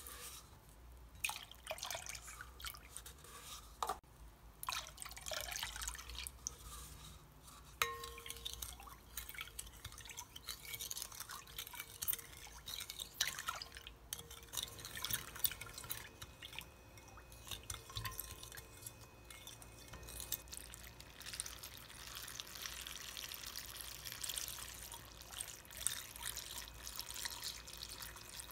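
A wooden spoon stirring soy-sauce brine in a glass bowl to dissolve the sugar: irregular scrapes and taps of the spoon against the glass and the liquid sloshing. Near the end the brine is poured into a plastic container of sliced green peppers and garlic.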